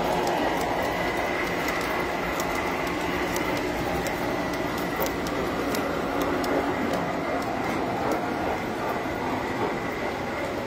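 Tinplate electric model train running on three-rail metal track: a steady rumble and rattle of metal wheels on the rails, with a faint steady high tone and small clicks over it.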